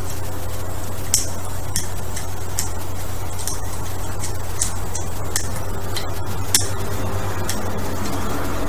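Light, irregular clicks and taps of a hand fitting a plastic arm adapter onto a child's bike handlebar, over a steady low hum.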